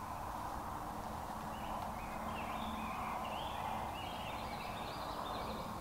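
Series of short, high, pitched bird calls from about two seconds in until near the end, over a steady background hiss of woodland ambience.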